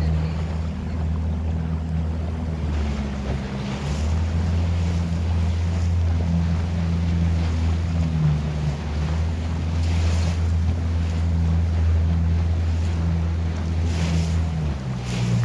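Motorboat engine running with a steady low drone, with water washing past the hull and wind buffeting the microphone.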